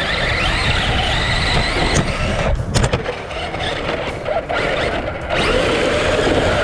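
Electric RC car motor whining as the car is driven hard, its pitch rising and falling with the throttle over rough running noise. It eases off with a few sharp clicks about two and a half seconds in, then picks up again after about five seconds.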